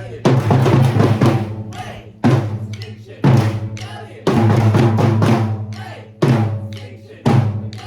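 A samba band's drums playing. Deep bass drums strike about once a second and ring out, with snare and other percussion filling in between.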